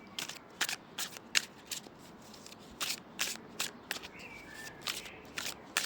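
Tarot cards being shuffled by hand: a string of irregular soft snaps and flicks, two or three a second. A brief high chirp comes in a little after four seconds.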